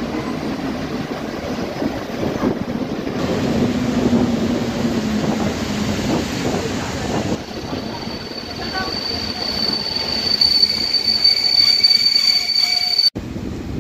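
A PKP Intercity passenger train pulls into the platform with its coaches rumbling past. From about eight seconds in, a steady high-pitched squeal rises over the rumble as the train slows, typical of brakes squealing. The sound cuts off abruptly shortly before the end.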